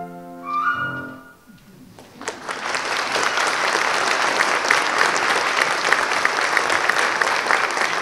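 The last notes of a flute and piano duet ring out and die away in the first second. After a short hush, the choir and audience break into applause about two seconds in, which goes on steadily.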